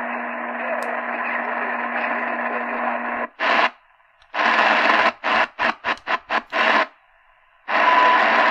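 Shortwave static hiss from a Realistic DX-380 radio's speaker cuts out about three seconds in. While the receiver's tuning mute steps up the band, there is silence broken by a run of short blips of static. Near the end the static returns on 3.330 MHz with faint once-a-second tone pips from CHU, Canada's time signal station.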